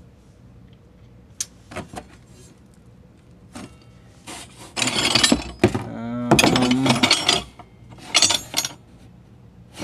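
Plasma-cut 1095 steel knife blanks clattering and clinking against each other as a hand rummages through them in a cardboard box: a few light taps at first, then three loud bursts of metal-on-metal rattling in the second half.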